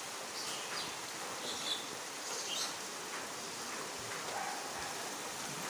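Steady outdoor hiss with a few short, faint high bird chirps.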